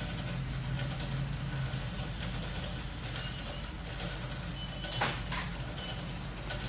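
Steady low background hum, broken about five seconds in by a sharp click and a smaller one just after it: metal pliers set down on a glass counter top while steel wire is being bent.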